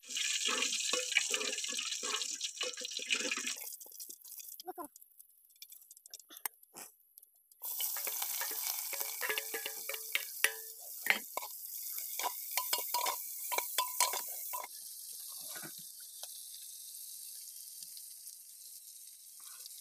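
Food sizzling in an aluminium pot over a wood fire, with a metal ladle scraping and clinking against the pot as it is stirred. The sizzling comes in two loud spells, then settles to a softer hiss.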